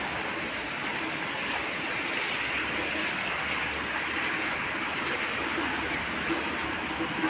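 Steady rain falling, an even hiss, with one sharp tick about a second in.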